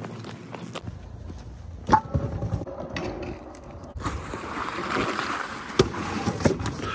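Stunt scooter wheels rolling over concrete, with a few sharp clacks as the scooter hits the ground.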